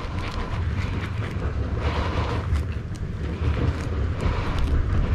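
Steady low rumble of wind buffeting the microphone, with scattered light crackles and scrapes from branches and bark as someone moves in the tree.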